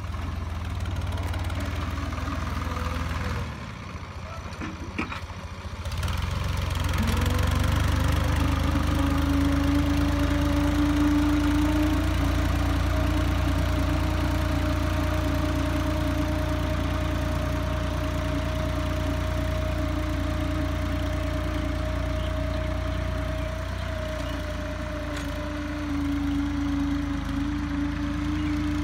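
Farm tractor's diesel engine running steadily while pulling a tillage implement through soil. About four seconds in it drops quieter for a couple of seconds, then picks up again with a rising pitch and holds steady, easing slightly and rising again near the end.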